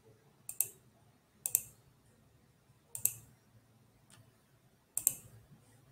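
Computer mouse button clicked four times, a second or two apart, each a short click with a quick press-and-release double tick.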